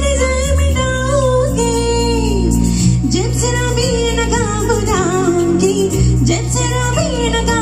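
A woman singing live into a microphone, her melody sliding and wavering on held notes. Amplified instrumental accompaniment plays under her, with steady low bass notes that change every second or so.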